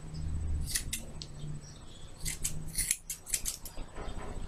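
Scissors snipping through a thick ponytail of hair in a series of short, crisp cuts. There are a few about a second in and a quicker run between about two and three and a half seconds in.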